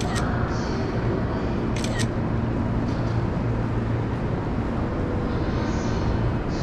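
Steady train station platform ambience: a constant low rumble and hum, with a couple of sharp clicks at the start and about two seconds in.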